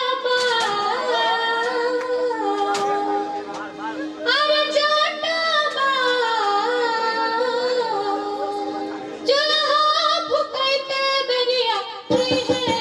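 A high voice singing a Maithili Jat-Jatin folk song over a steady held harmonium note. Tabla and dholak strokes come in just before the end.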